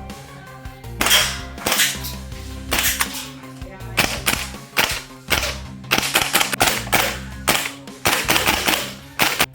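Umarex (VFC) HK33 gas blowback airsoft rifle firing, with sharp cracks of the gas-driven bolt cycling. Single shots and short rapid bursts begin about a second in, over background music.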